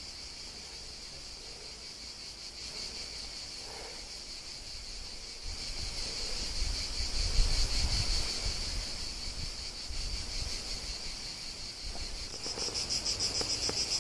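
Cicadas buzzing steadily in a high, even drone that turns into a fast, louder pulsing near the end. A low rumble, like wind on the microphone, runs through the middle.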